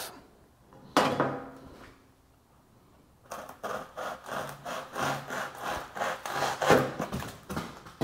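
A large knife sawing back and forth through a foam pool noodle, with repeated rubbing strokes about two to three a second that start about three seconds in. About a second in there is a single knock.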